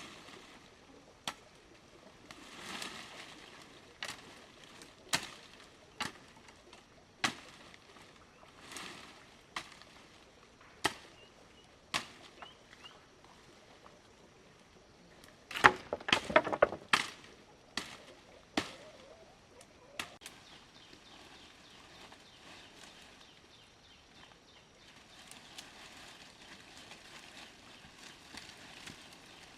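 A tool striking wood in sharp, separate knocks, roughly one every second or two, with a quick flurry of blows about halfway through.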